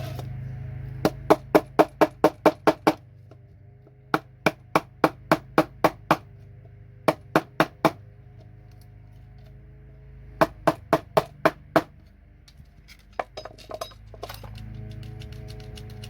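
Quick runs of sharp hammer taps, about four a second, knocking the plastic housing off a gold-pinned computer connector. There are four bursts, with pauses between them.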